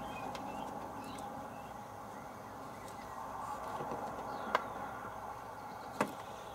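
Quiet handling of a bundle of thin wires in a wiring loom, with two sharp clicks about a second and a half apart in the second half.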